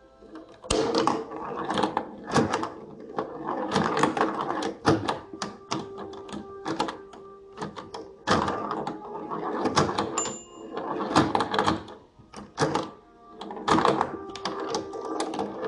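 LEGO pinball machine in play: plastic flippers snapping and the ball knocking and rattling around the brick playfield, in rapid, irregular clatters with short pauses between.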